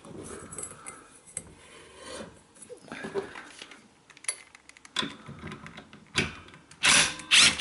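Small handling sounds on the mower engine, light metal clicks and rubbing, then near the end a power drill motor whirs loudly, its pitch sweeping up and down, as the ignition coil's bolts are undone.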